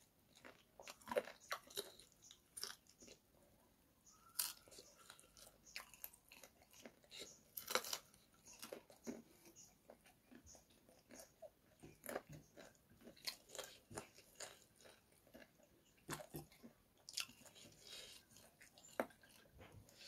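Close-miked eating sounds: a man chewing and biting chicken curry and rice, gnawing on a chicken leg bone, with irregular sharp crunches and clicks, a few of them loud.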